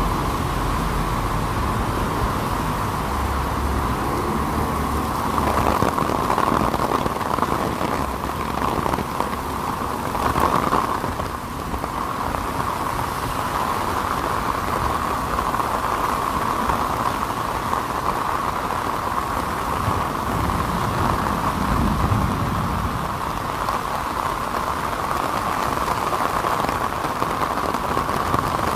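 Heavy rain pouring steadily onto pavement and a wet city road, with the low rumble of cars passing on the wet road now and then.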